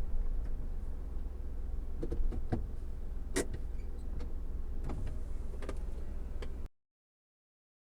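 Low, steady rumble of a car on the move, with a few light clicks and taps over it; it cuts off abruptly near the end.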